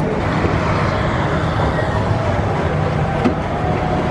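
Street traffic: motor scooters and cars running past with a steady engine hum.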